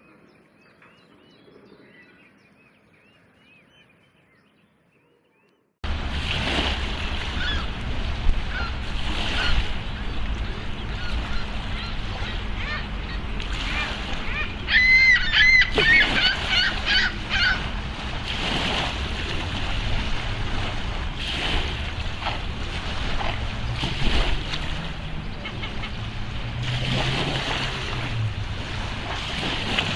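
Swans honking in repeated short calls over a steady rushing noise, which starts abruptly about six seconds in; the calls come thickest midway through. Before that, only faint bird chirps.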